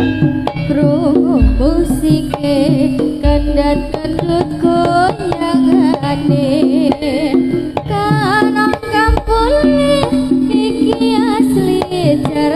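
Live Javanese jaranan music played by a gamelan ensemble. A singer's wavering melody with vibrato runs over steady ringing metallophone notes and kendang drum strokes.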